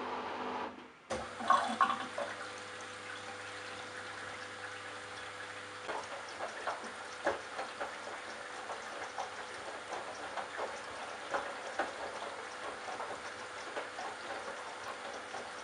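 Candy Bianca washing machine: a steady motor hum cuts out about a second in, a few clunks follow, then water running into the drum with scattered light knocks and splashes.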